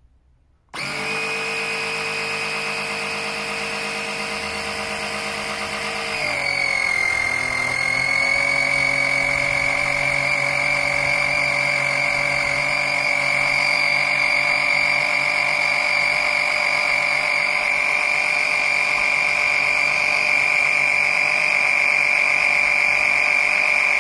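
A 12-volt electric oil extractor pump switches on and runs with a steady motor whine while it sucks engine oil out of the car. About six seconds in its pitch drops slightly and it gets a little louder, then it runs on evenly.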